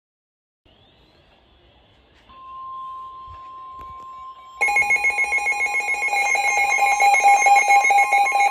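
Alert tones before a weather warning. A steady NOAA Weather Radio-style warning alarm tone near 1 kHz starts about two seconds in. About halfway through, a much louder alarm joins over it, ringing on several pitches and pulsing rapidly.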